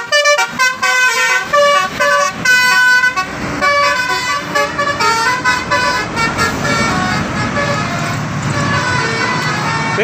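Tour bus telolet horn, a set of air horns playing a quick tune of stepped notes, as the bus passes close by. The bus's engine and road noise grow under the horn in the second half.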